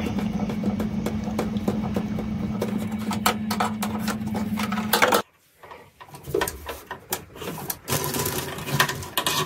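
Clicks and light metallic rattles from a nut driver working the flame sensor's screw loose inside a furnace burner section, over a steady hum. The hum stops abruptly about five seconds in. After a short silence come scattered clicks and rustling as the parts are handled.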